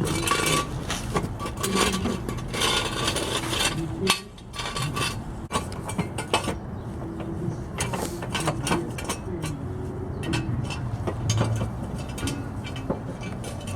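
Repeated metal clicks, clinks and knocks of a car jack and jack stands being worked and set under a truck.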